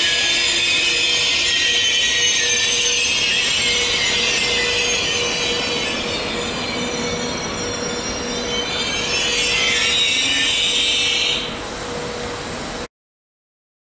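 Intercity passenger train rolling slowly into the station, its coach wheels and brakes giving a loud, steady high-pitched squeal as it slows to stop. The squeal drops away near the end and the sound cuts off abruptly.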